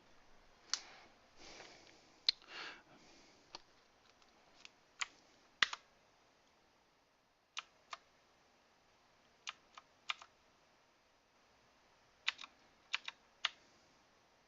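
Clicky blue mechanical key switches on a Redragon VARA K551 keyboard, pressed one at a time at uneven intervals, some in quick pairs, as function-key combinations are tried.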